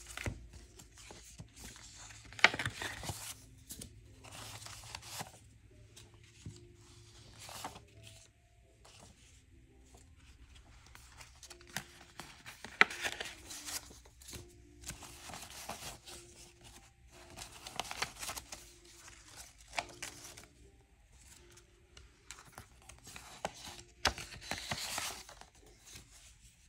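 Paper envelopes and banknotes rustling in irregular bursts as cash is handled and pulled out of savings envelopes, with a couple of sharp paper snaps.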